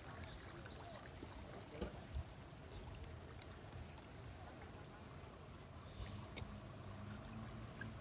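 Faint shoreline ambience: a low wind rumble with scattered crunches and clicks of boots on oyster shells, and a low steady hum that comes in about six seconds in.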